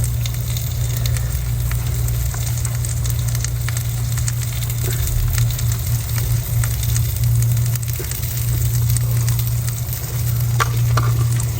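Salmon sizzling and crackling in a frying pan, with scattered small pops, over a steady low hum.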